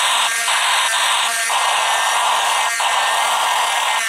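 Small electric motor and plastic gears of a battery-powered crawling toy firefighter figure whirring and grinding loudly as it crawls, with short breaks in the sound several times.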